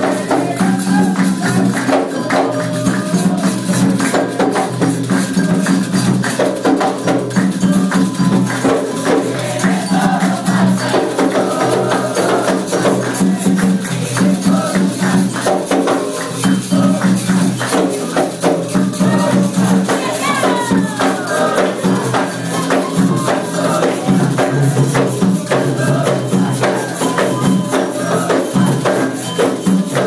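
Candomblé toque for Oxum: atabaque hand drums and shaken or struck percussion playing a steady, dense rhythm, with hand-clapping and voices singing.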